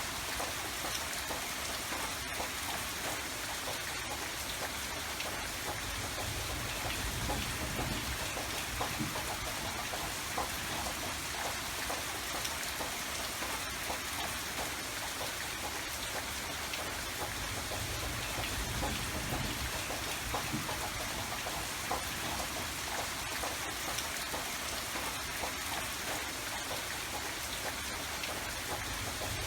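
Steady rain falling, a dense even patter of raindrops.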